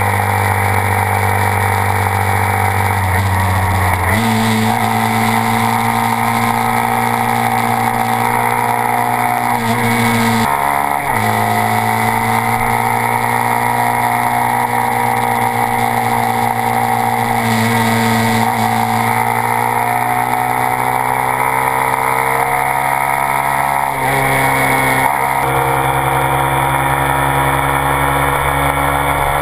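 Honda Grom 125's single-cylinder engine running through a Two Brothers S1R aftermarket exhaust at sustained high revs at highway speed. The engine note steps up about four seconds in, dips briefly and comes back around eleven seconds, and shifts again near the end.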